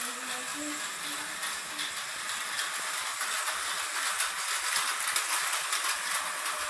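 Toy train running on its track: a steady rattling hiss with many small clicks.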